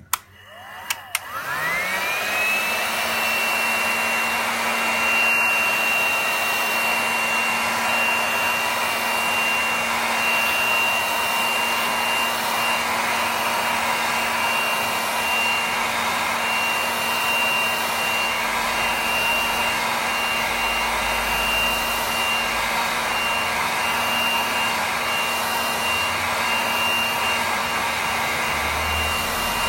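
Hot air gun switched on with a click about a second in, its fan whine rising and then running steadily with a high whine and a blowing rush, heating a phone's back glass.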